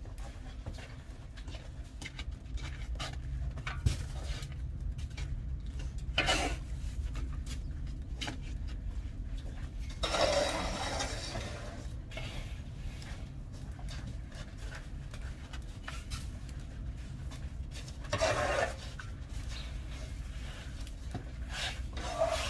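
Irregular scraping and rubbing noises over a steady low rumble, with a longer, louder scrape about ten seconds in and shorter ones about six and eighteen seconds in.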